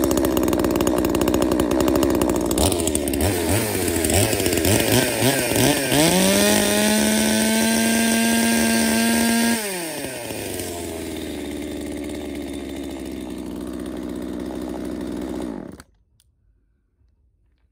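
Papillon 25 cc two-stroke top-handle pruning chainsaw running, blipped several times in quick succession, then held at full throttle for about three and a half seconds. It drops back to a steady idle and is switched off, cutting out suddenly near the end.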